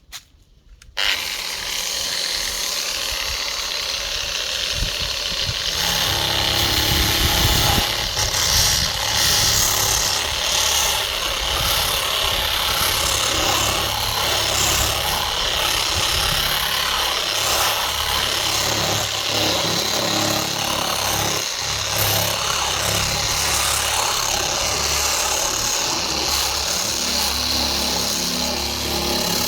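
A handheld electric power tool running steadily, switched on about a second in.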